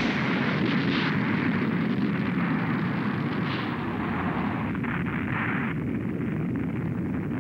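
Sound effect of a large explosion: a continuous low rumble that slowly dies away, with a few brief louder surges in it.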